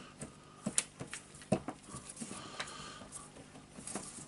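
Parts of a Makita DHP458 cordless drill (armature, brush holder) being fitted into its plastic housing: a scatter of light clicks and knocks, the sharpest about one and a half seconds in.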